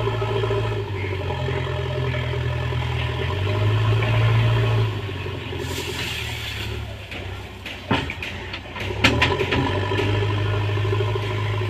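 JCB 3DX backhoe loader's diesel engine running steadily, its pitch shifting a few times early on. About halfway through comes a brief hissing rush, then a few sharp knocks.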